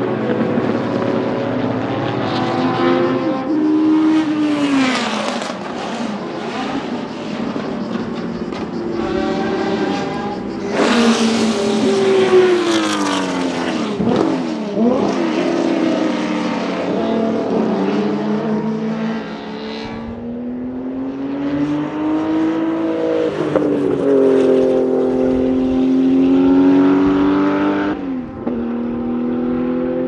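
Historic racing cars at full throttle on a long straight, several engines one after another, their pitch climbing through the gears and dropping as each car goes past. About halfway through, a BMW M1 ProCar's straight-six passes.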